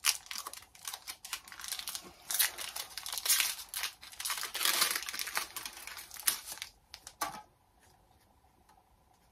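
Foil wrapper of a Pokémon trading card booster pack being torn open and crinkled in the hands, a dense crackling that stops about seven seconds in.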